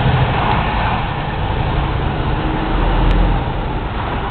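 Steady road noise inside a truck cab: the engine running and tyres hissing on a wet highway.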